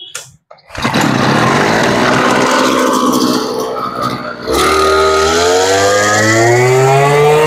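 Mitsubishi TL33 two-stroke brush cutter engine starting up less than a second in and running loudly. About four and a half seconds in it is throttled up, its pitch climbing steadily.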